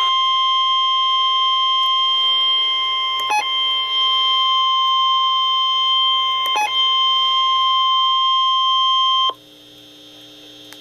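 NOAA Weather Radio 1050 Hz warning alarm tone heard through a weather radio receiver, sounding a warning alert. It is one steady, high-pitched beep with two very brief breaks, and it cuts off suddenly about nine seconds in, leaving a faint radio hum.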